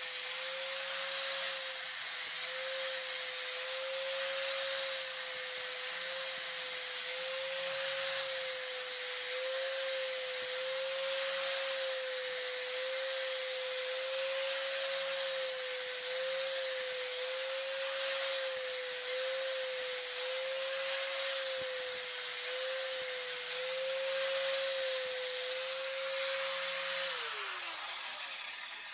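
A high-speed electric motor runs steadily with a loud hiss, then is switched off near the end and winds down in falling pitch.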